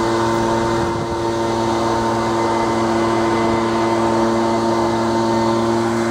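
Steady engine-like mechanical drone holding one unchanging pitch.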